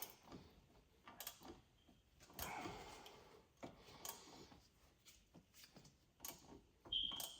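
Harbor Freight Icon G2 ratchet clicking as it is worked on a wheel-hub bolt, with faint, irregular ticks and short strokes as the handle swings back and forth. The many clicks per swing show the ratchet's low back drag.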